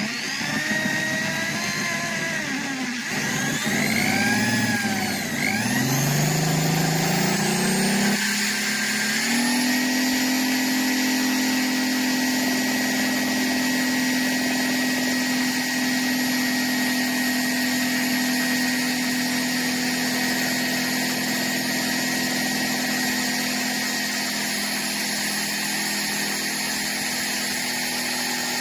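Electric hammer drill's motor winding up in steps over the first several seconds, then running steadily at full speed.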